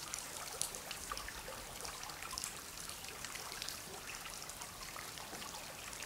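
Faint trickling water, an even wash with scattered small ticks.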